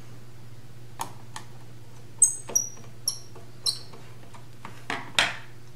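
Small screws on an XP Deus metal-detector remote being half-tightened with a small screwdriver: about eight sharp little metallic ticks and clicks, a few with a brief high ring, and a short scrape near the end.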